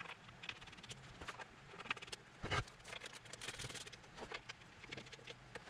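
Faint scattered clicks, taps and light rustling of hands handling parts as feet are fitted onto the laser engraver's metal frame, busiest between about two and a half and four seconds in.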